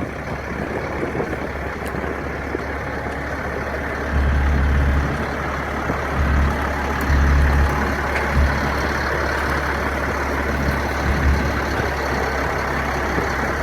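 A heavy engine running steadily, with a constant low rumble that swells in several brief surges, the longest about four and seven seconds in.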